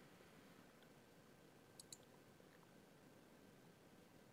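Near silence with a faint pair of computer mouse clicks about two seconds in, as the photo viewer steps to the next picture.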